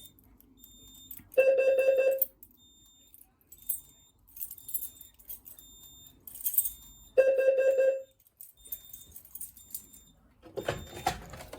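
Fire alarm speaker strobe sounding a steady low alarm tone twice, each about a second long and about six seconds apart: the carbon monoxide alarm signal set off by a pull station on the CO circuit. Faint short high beeps repeat in between, with some rattling and a louder scuffling noise near the end.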